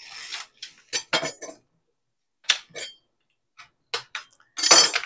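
Kitchen dishes and utensils clinking and clattering on a countertop in a string of short, separate knocks, the loudest and longest near the end.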